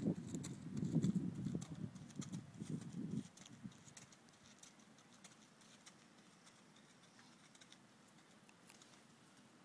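Faint hoofbeats of a horse trotting on a sand arena, heard as scattered light ticks. For about the first three seconds a low rumbling noise on the microphone covers them, then cuts off.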